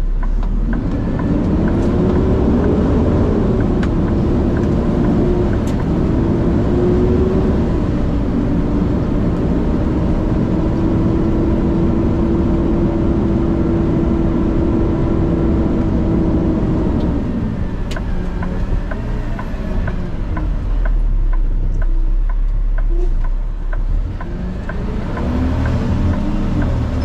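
Diesel truck engine pulling away and running under load, its tone rising over the first couple of seconds and holding steady, then dropping off about 17 seconds in before climbing again near the end.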